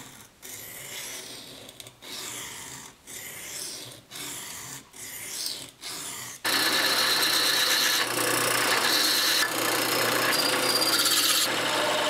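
Steel knife blade drawn across a sharpening stone, about one rasping stroke a second. A little past halfway an electric drill starts abruptly and runs with a steady whine, louder than the strokes, boring a hole through the steel blade.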